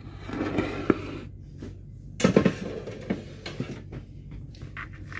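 Serving platter being lifted and set down on the countertop: a handful of knocks and clinks of dishware, the loudest cluster about two seconds in.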